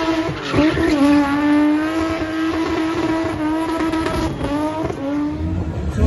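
A spinning car's engine held at high, steady revs as the car does tyre-smoking doughnuts, with a haze of tyre noise under it. The revs dip briefly about half a second in and again a couple of times near the end.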